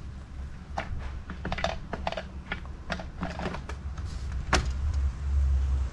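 Hard-cased e-bike battery pack clicking and knocking against its frame mount as it is fitted onto the down tube: a run of sharp, irregular clicks, the loudest a little past four and a half seconds in.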